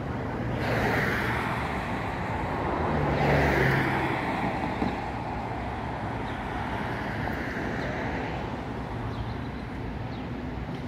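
Road traffic passing close by: vehicles going past one after another, the loudest swells about a second and three and a half seconds in, the second with a low engine note, then steady traffic noise.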